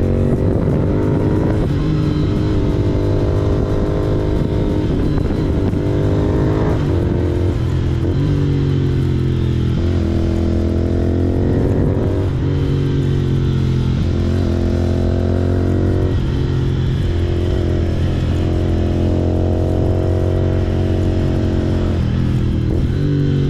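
Royal Enfield Continental GT 650's parallel-twin engine through a Red Rooster aftermarket exhaust, heard from the saddle while riding. The engine note climbs under throttle and drops back sharply, over and over, with a steady deep exhaust rumble beneath.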